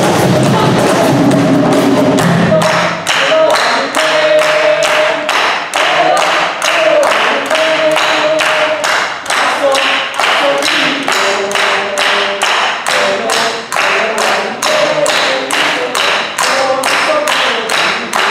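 Hand drums (djembes and cajón) playing together, dropping out about two and a half seconds in. A percussion ensemble then claps a steady rhythm, about three claps a second.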